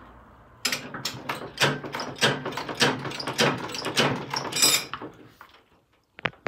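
Dense rattling and clunking of a 1983 Honda CR480R motocross bike rocked back and forth by hand on its stand, the drivetrain knocking, for about four and a half seconds, then a few sharp clicks near the end.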